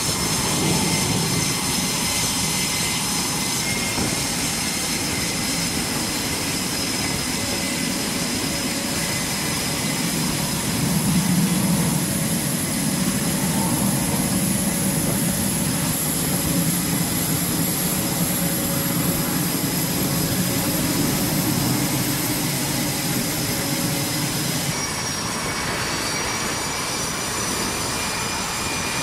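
Jet engines of Navy strike fighters (EA-18G Growler and F/A-18 Super Hornet, each with twin General Electric F414 turbofans) running at low power on a carrier flight deck. It is a steady loud rush with several high whining tones. The mix of tones shifts abruptly a few seconds before the end as another jet takes over.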